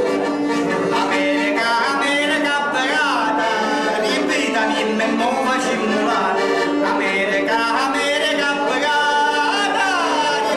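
Man singing long, sliding phrases over his own piano accordion, which holds steady chords underneath.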